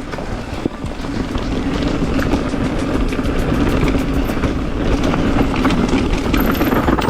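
Mountain bike rolling fast down a rocky trail: a steady rumble of the tires over rock, with scattered knocks and clicks.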